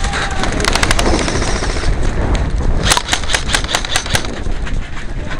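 Airsoft guns firing: a few sharp cracks about a second in, then a quick run of about seven shots between three and four seconds in, over a loud steady noise.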